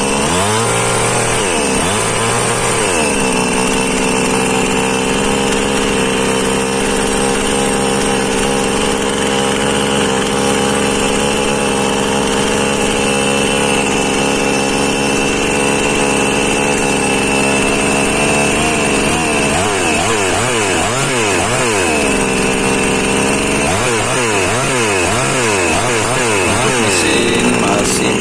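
Engine of an H&L Pro mini petrol chainsaw running, mostly at a steady speed, with its revs rising and falling repeatedly in the first few seconds and again in two stretches in the second half. It is being run as a test of the engine's condition after more than a year of use.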